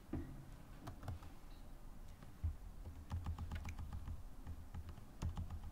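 Computer keyboard typing: quiet key clicks in short irregular runs, the busiest stretch from about two and a half to almost four seconds in.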